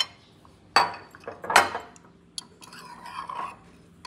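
A metal knife clinks against a glass jar of strawberry conserve, with four sharp clinks in the first two and a half seconds, the third the loudest, followed by softer scraping as the conserve is scooped out.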